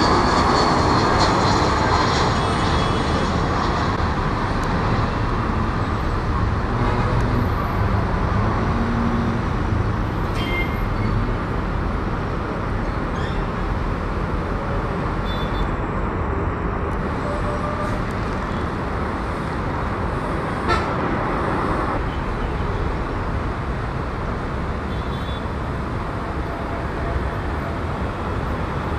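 Nepal Airlines Airbus A320's jet engines on landing: a loud whine that falls in pitch over the first couple of seconds as the airliner passes close on short final, then a steady jet rumble slowly easing off as it rolls out on the runway.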